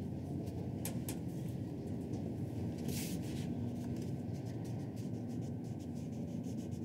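Steady low hum of a ThyssenKrupp elevator cab travelling upward, with a few faint clicks and a brief rustle about three seconds in.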